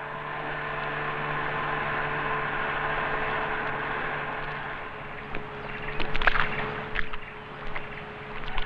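Boat motor running steadily on the river, fading out about five seconds in, followed by a few scattered knocks of wood as the longboat comes in at a log-raft landing.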